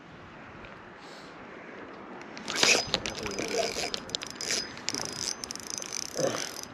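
Fishing reel being cranked, a run of irregular mechanical clicks and rattles starting about two and a half seconds in, as the line comes tight on what may be a snag.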